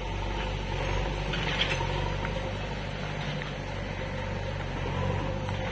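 An engine running steadily: a low, even hum that holds the same pitch throughout.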